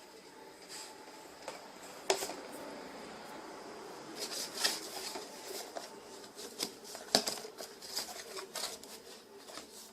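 Scattered clicks, taps and rustles of small objects being handled, with sharper knocks about two seconds in and around seven seconds.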